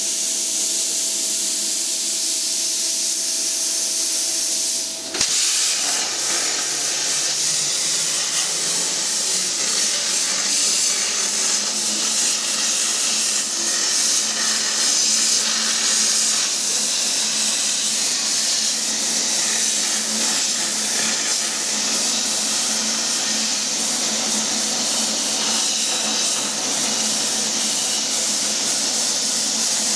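Steady loud hissing, with a sudden change about five seconds in.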